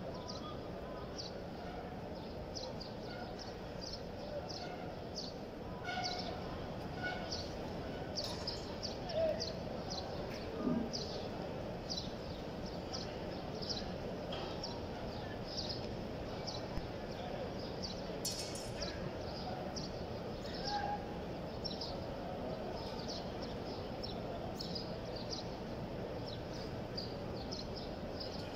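Steady murmur of a large crowd of pilgrims, with many short high chirps running through it.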